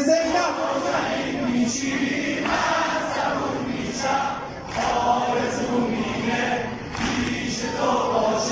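Large crowd of male mourners singing a Persian Shia lament (noha) in unison, with a soft regular beat about every second and a half: the mourners beating their chests (sineh-zani) in time.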